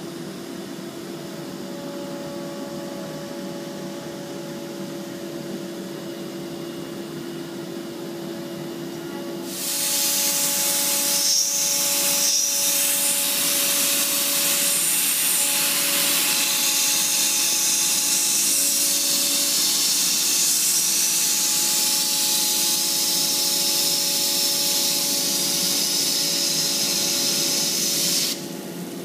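CNC router with a 12 HP HSD spindle running with a steady hum. About a third of the way in, a loud steady hiss comes in suddenly as the bit cuts through HDPE marine board. The hiss stops abruptly just before the end.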